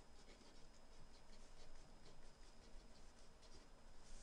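Faint scratching of a marker pen writing letters on paper, in a run of short strokes.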